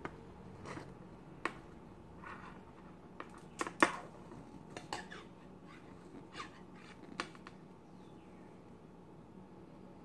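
Scattered light clicks, taps and short rustles of hands working an adhesive wrap onto an arrow shaft on a tabletop. The sharpest click comes about four seconds in.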